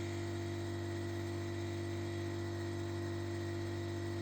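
A steady low hum made of several fixed tones over a faint hiss, with no change in level.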